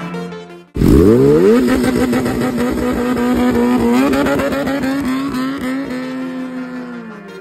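Kawasaki ZX-10R's inline-four engine revving up sharply about a second in, then running at high revs as the bike accelerates away. Its pitch sinks a little and fades near the end.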